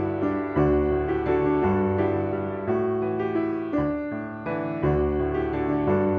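Light instrumental background music led by piano, with chords changing about once a second.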